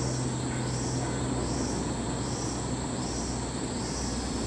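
Chorus of jungle insects, a steady high hiss with a pulsing call repeating about every two-thirds of a second, over a steady low hum.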